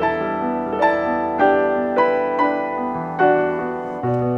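Background piano music: single melody notes struck every half second or so, each ringing and fading, over held lower notes.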